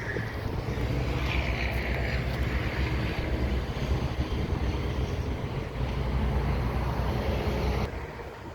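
Steady low engine rumble with wind buffeting the microphone, dropping off abruptly near the end.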